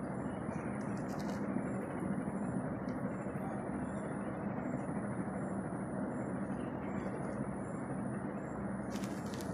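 Steady low mechanical rumble with a faint hum.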